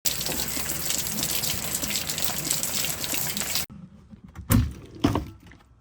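Heavy rain pouring down, a dense steady hiss that cuts off abruptly about two-thirds of the way in. Then two dull knocks a little over half a second apart.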